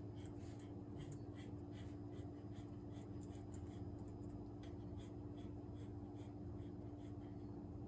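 Typing on a System76 Oryx Pro laptop keyboard: quick, irregular keystroke clicks over a steady low hum.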